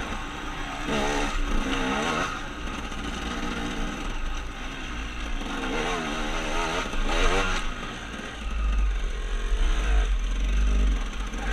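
KTM 300 two-stroke enduro motorcycle running under load on a dirt trail, its engine note rising and falling as the throttle is worked, several times. A heavy low rumble joins in about two-thirds of the way through.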